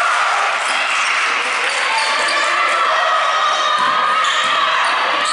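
A basketball being dribbled on a hardwood gym floor during play, with shouting and chatter from players and onlookers, all echoing in a large gymnasium.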